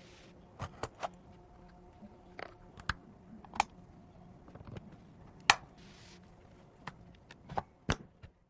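Irregular sharp clicks and taps of PC hardware being handled and fitted during a build, about a dozen over several seconds and the loudest a little past the middle, over a faint steady hum.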